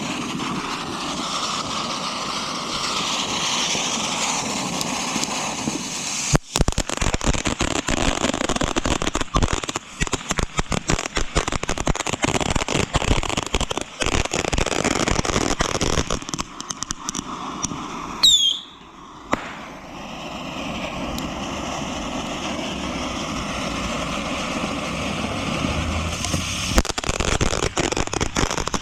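Consumer fireworks going off: a steady hissing spray for about six seconds, then dense, rapid crackling and popping. About two-thirds through there is a brief falling whistle, and the hiss returns after it.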